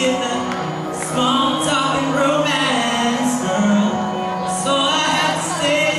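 A band playing a song live, with singing over guitar and band backing.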